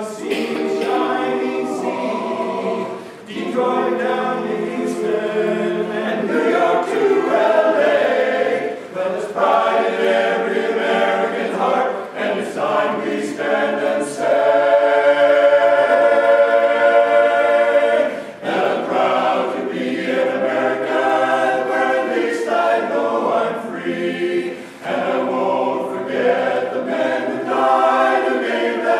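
Men's barbershop chorus singing a cappella in close harmony, with a chord held for about four seconds midway through.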